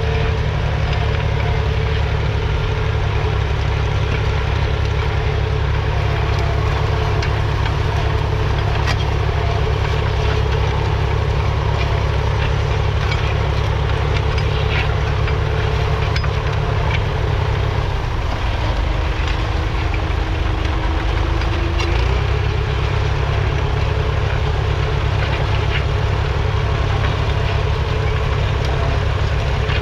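David Brown 780's 2.7-litre three-cylinder diesel engine running steadily. A little over halfway through, the engine note shifts for a few seconds, with a faint rising whine, then settles back.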